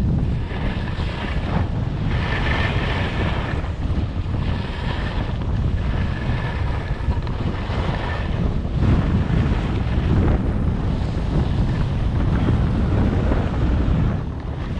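Wind buffeting the camera microphone during a ski descent, over the hiss of skis sliding and carving on snow that swells with each turn, about every two seconds.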